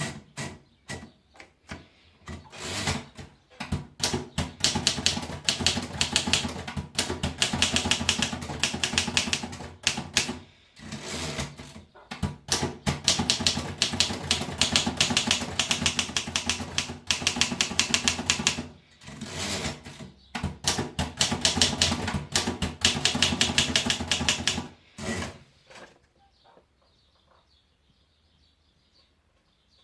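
Torpedo 18 manual typewriter being typed on: rapid keystroke clatter in long runs broken by a few short pauses, stopping about four seconds before the end.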